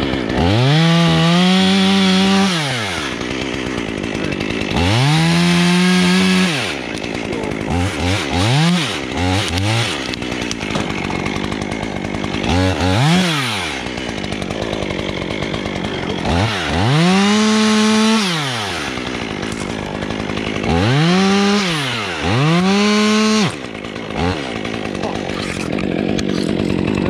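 Two-stroke chainsaw idling and revving up about eight times, each rev held for a second or two and dropping back to idle, as limbs are cut off a spruce trunk.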